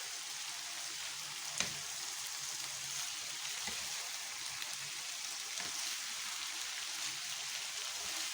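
Liver, onion and green chili peppers sizzling steadily in a frying pan as the liver finishes cooking. A single sharp knock comes about a second and a half in, likely a utensil against the pan.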